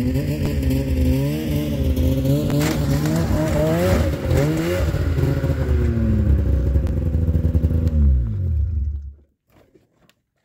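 Polaris RMK 600 two-stroke snowmobile engine running, its revs rising and falling unevenly as the sled is driven up a trifold ramp into a pickup box. About eight seconds in, the engine winds down and shuts off, leaving a few faint clicks.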